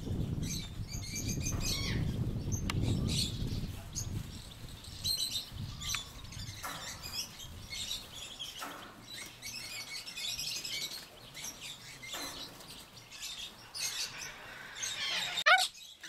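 Birds in an aviary chirping in short, repeated bursts, with a low rumble over the first few seconds and one louder rising call just before the end.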